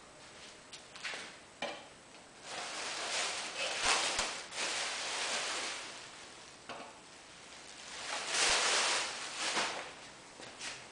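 Rustling and scraping handling noises in two long stretches, with a few sharp clicks and knocks in between, as a newly unboxed scroll saw and its packaging are handled.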